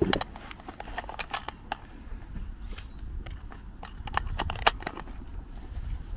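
Brass rifle cartridges being pressed one at a time into a detachable box magazine, giving a run of irregular clicks and snaps over a low rumble.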